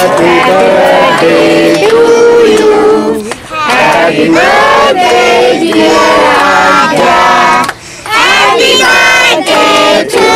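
Several voices singing together, children's among them, loud and continuous, with two short breaks.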